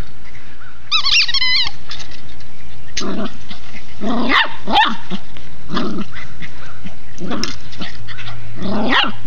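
Golden retriever puppy barking: about six short, loud barks spaced a second or so apart, after a high wavering call about a second in.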